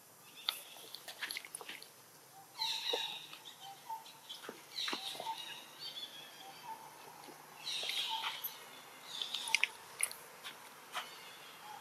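Baby long-tailed macaque screaming and squealing in clusters of short, high-pitched cries, a distressed crying for its mother while a young macaque wrestles it roughly.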